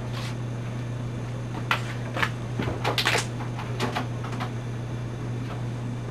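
A few light clicks and taps over a steady low hum, the most of them packed together about three seconds in.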